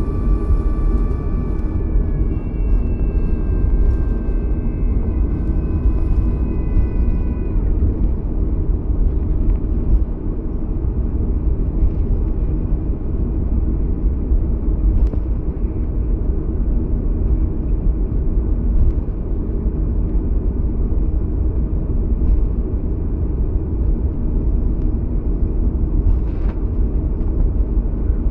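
Inside the cabin of a Boeing 737-300 taxiing after landing: a steady, loud rumble from the CFM56 engines and the rolling airframe. Over the first several seconds the engines' whine drops in pitch about two seconds in and then fades out as they wind down to idle.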